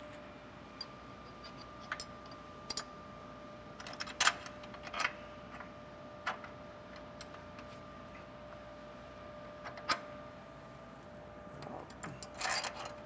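Scattered metallic clicks and clinks of hand tools and hydraulic fittings being handled and worked on, a few sharper knocks among them, the loudest about four seconds in, about ten seconds in, and a quick run of them near the end. A steady hum runs underneath.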